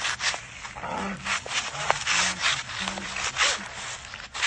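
A man choking: a run of short, harsh rasping gasps, several a second, with brief gagging sounds among them.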